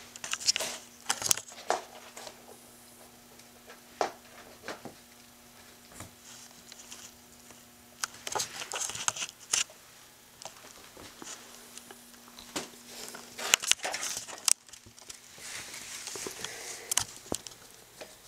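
Small puppy claws clicking and pattering on a tile floor in irregular clusters, with brief rustles mixed in and a faint steady hum underneath.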